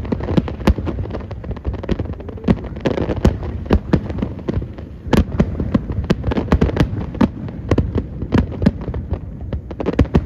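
Aerial fireworks display: shells bursting in a rapid, irregular barrage of bangs, several a second, over a continuous low rumble.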